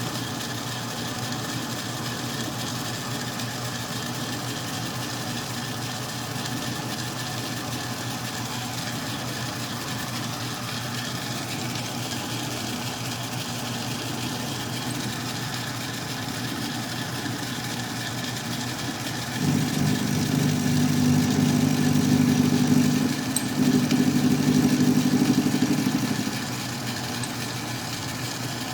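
Atlas 10-D metal lathe running steadily while turning a taper on a bolt. From about 19 seconds in, a louder pitched hum rises over it for some six seconds, breaking off briefly in the middle.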